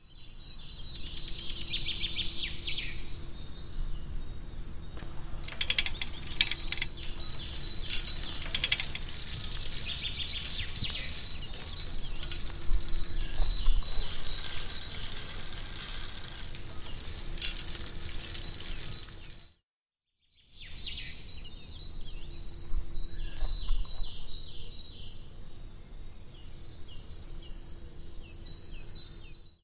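Outdoor ambience: birds chirping over a steady noisy bed, with short mechanical clicks and rattles. The sound cuts to silence for about a second around two-thirds of the way through, then resumes.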